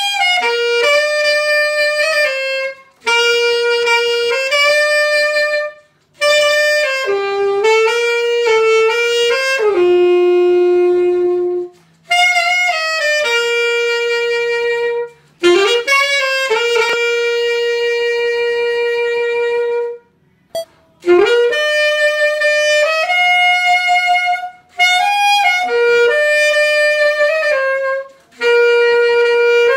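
Solo saxophone played through a Meyer mouthpiece, a melody in phrases with short breath pauses, including a long held low note about ten seconds in. After a break of about a second, a second take begins on the same mouthpiece, blown in a different style: the player switches between a classical/concert-band embouchure and a loose rock/fusion one.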